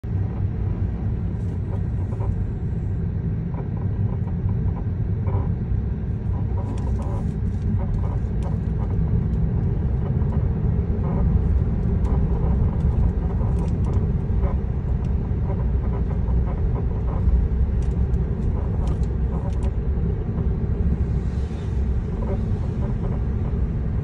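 Steady road and tyre rumble inside the cabin of a 2019 Tesla Model 3 Long Range on the move, with short irregular creaks and squeaks from its upper control arms over the bumps, the sign of a faulty upper control arm that is due for replacement.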